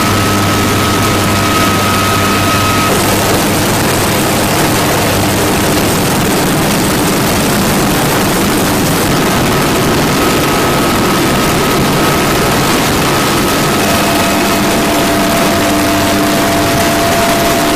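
Military helicopter turbine engines and rotors running close by, a loud, steady din with a high whine. The whine changes pitch about three seconds in, and an attack helicopter, a Bell AH-1Z Viper, is lifting off close by.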